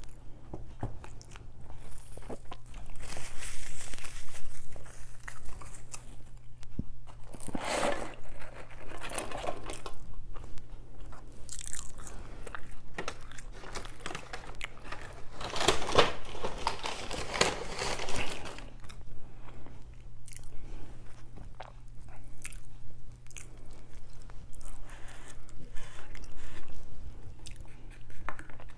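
Close-miked eating: bites and wet chewing of sandwiches and fries. The sounds come in irregular clusters, loudest around eight and sixteen seconds in.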